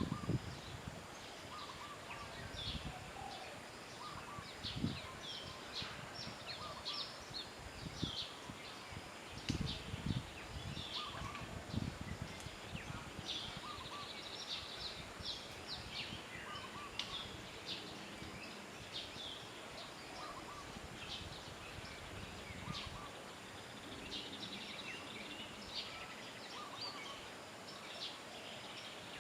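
Birds chirping with short, high, repeated calls throughout, over steady outdoor background noise, with a few soft low thumps in the first half.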